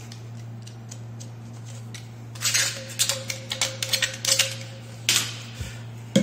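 Utility knife blade scraping around the cut end of a plastic PVC pipe in a quick run of short strokes, deburring the edge so it won't cut the rubber seal, over a steady low hum. A sharp click comes near the end.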